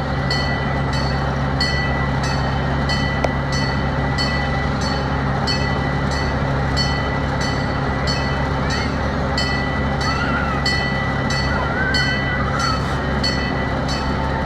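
Train running along the track, heard from on board: a steady rumble and rush with a regular light clicking about twice a second and a thin steady high whine.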